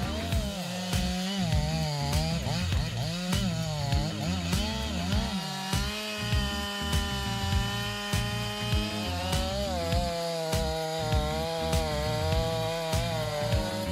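Stihl MS 500i fuel-injected two-stroke chainsaw running under load while cutting a large log: its pitch wavers and sags, holds steady and high for a few seconds in the middle, then wavers again. Background music with a steady beat plays underneath.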